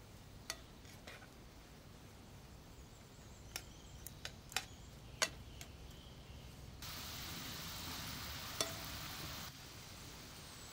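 Onions and shrimp frying in a pan over a charcoal fire, a faint steady sizzle broken by several sharp clicks of metal tongs against the pan as they are stirred. About seven seconds in a louder sizzle comes in suddenly and stops as suddenly about three seconds later.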